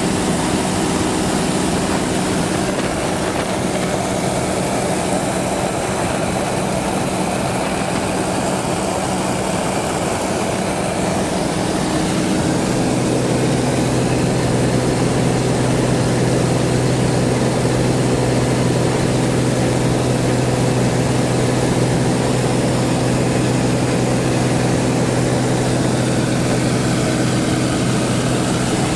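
A steady engine drone that runs on evenly. About twelve seconds in, its note shifts and settles into a deeper, steadier hum.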